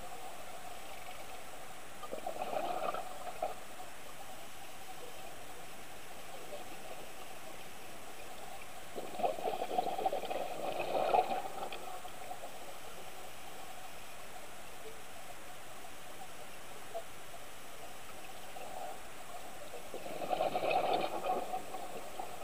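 Scuba regulator exhaust bubbles heard underwater: three gurgling bursts of exhaled bubbles, spaced about eight to ten seconds apart at a diver's breathing pace, over a steady hiss.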